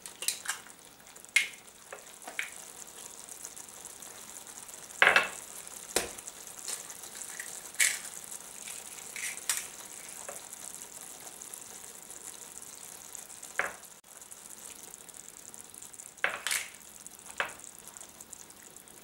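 Tomato sauce simmering in a stainless steel frying pan, a steady bubbling hiss. Several sharp taps and clicks break it as eggs are cracked and dropped into the sauce.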